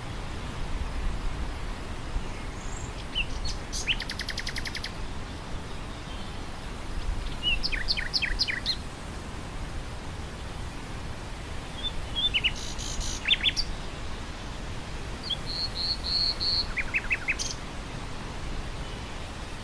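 Wind blowing through grass with a steady rush, while a nightingale sings about four short phrases of rapidly repeated high notes, separated by pauses.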